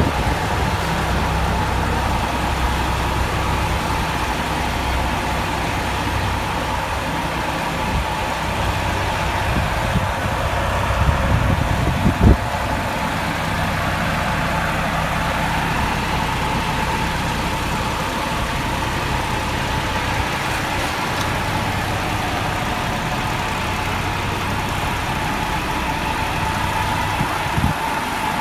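Diesel engine of a concrete pump truck running steadily at low revs, with a sharp knock about halfway through and a lighter one near the end.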